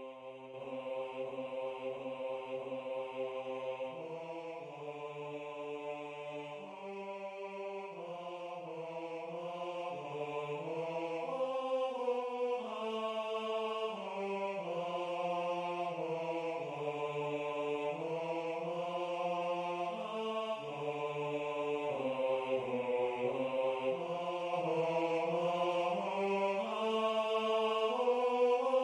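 MuseScore playback of a choral bass part on a synthesized choir voice. It holds a quiet low note for about the first four seconds, then moves note by note through the bass line, growing louder toward the end as the part crescendos to forte.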